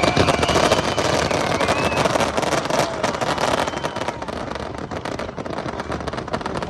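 Fireworks going off in a dense, continuous crackle of many rapid sharp pops.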